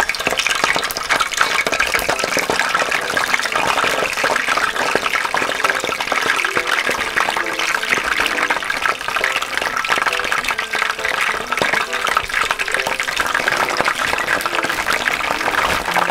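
Frozen cheese balls deep-frying in a pot of hot oil: a steady crackling sizzle and bubbling, with more balls being dropped in.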